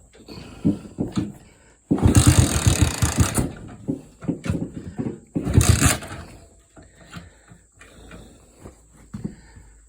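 SSR SC70C's small engine being started: it fires and runs with a rapid chatter for about a second and a half, then catches again briefly a couple of seconds later and dies, with clunks of the starting effort in between. It will not keep running because the fuel valve is still shut.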